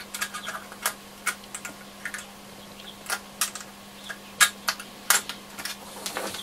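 Irregular small clicks and taps from a replacement module being worked into a transistor radio's metal chassis, its pins being lined up with the holes in the board. A faint steady hum runs underneath.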